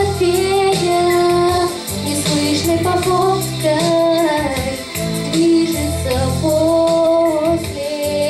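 A young girl singing a sustained, melodic line into a microphone over a pop backing track with bass and a steady beat.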